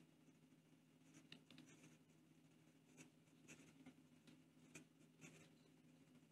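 Faint scratching of a medium steel fountain pen nib writing quickly on notebook paper: short, soft strokes come and go at uneven intervals over near-silent room tone.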